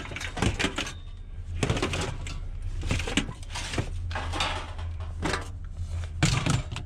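Irregular knocks, clatters and scraping of scrap items being shifted and packed into a vehicle to make room for a new piece.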